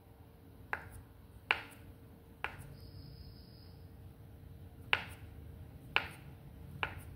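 Kitchen knife slicing sausages on a cutting board: six sharp taps as the blade goes through and strikes the board, about a second apart, with a longer pause in the middle.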